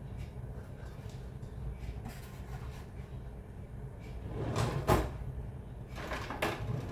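Steady low hum with a few sharp clunks about two-thirds of the way in and one more shortly after: a kitchen cupboard door being opened and shut.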